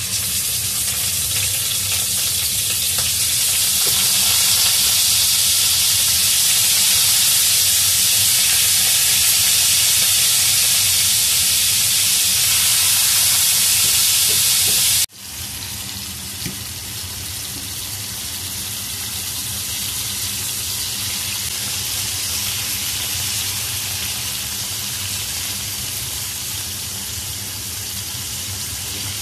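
Vegetable-stuffed chicken wings sizzling as they pan-fry in hot oil, a steady dense hiss. About halfway through it drops abruptly to a quieter sizzle.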